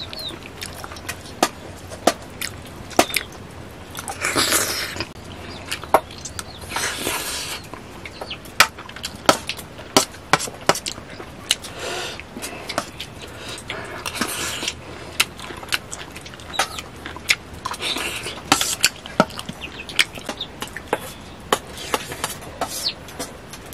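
Steel spoons clinking and scraping against stainless-steel plates and bowls as people eat rice and curry: many sharp, irregular clinks, with a few short noisy bursts between them.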